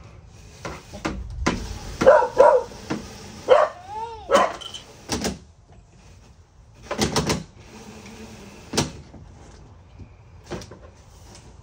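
A dog barking in short bouts, several barks spread through the stretch, with one longer rising-and-falling call about four seconds in.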